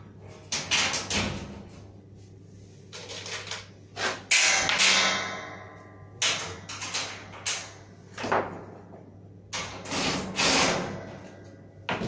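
Galvanized sheet-metal spray-booth panels being handled and fitted together: a run of irregular clanks, knocks and scrapes, the loudest about four seconds in, with the metal ringing briefly after it.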